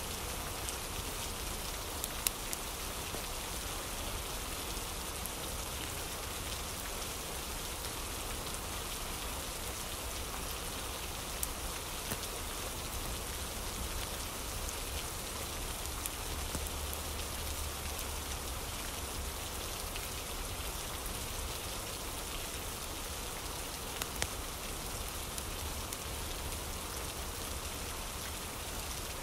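Steady rain falling, a continuous even hiss, with a few sharp clicks standing out about two seconds in, near the middle and near the end.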